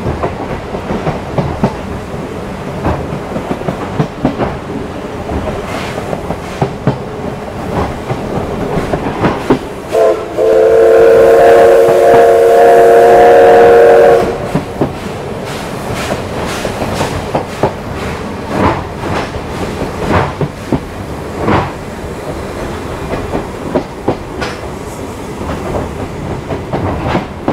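Train wheels clicking over rail joints, heard from inside a passenger coach. A little over ten seconds in, the locomotive's whistle sounds one long chord of several tones for about four seconds; it is the loudest sound here.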